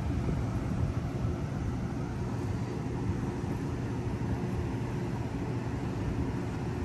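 Electric inflatable blower running steadily, a constant low drone, as it fills and holds up an inflatable water slide.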